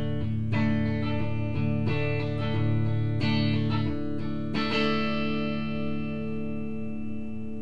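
Guitar music: a guitar plays a short run of chords, then about two-thirds of the way in lets the last chord ring out and slowly fade.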